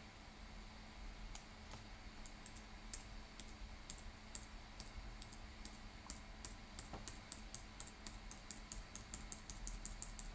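Faint, light clicking at a computer, sparse at first and coming faster, several clicks a second, in the second half, over a low steady hum.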